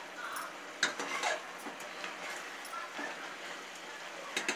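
Metal spatula scraping and knocking against the side of an aluminium pressure cooker while stirring chicken in thick gravy: a handful of separate short scrapes and clinks, a cluster about a second in, another near three seconds and a pair near the end.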